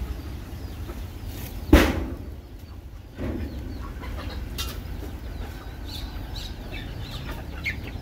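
Chickens clucking and calling faintly in the background, with one sharp knock about two seconds in as the loudest sound, over a low rumble.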